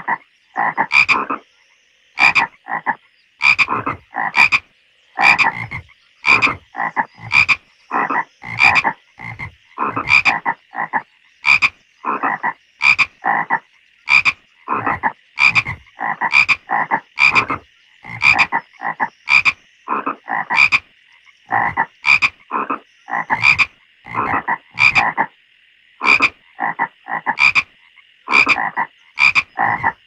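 Frogs croaking in a pond: short croaks, often in quick pairs, repeat about twice a second over a faint, steady, high background chorus.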